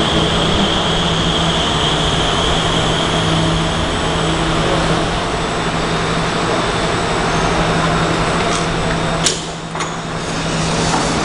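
Alstom MOVIA R151 metro train braking to a stop at the platform. Its electric drive hums steadily, and a high whine fades away over the first few seconds as it slows. A sharp click comes about nine seconds in.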